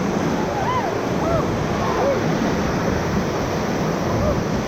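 Steady rushing of whitewater on the Ocoee River's rapids, heard from a raft as an even, loud noise of water. Faint, short, high calls rise and fall about one to two seconds in.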